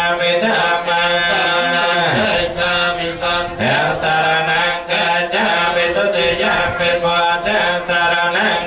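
Buddhist monks chanting together in unison into microphones, a steady drone held mostly on one pitch, with the voices sliding down and back up twice, about two and three and a half seconds in.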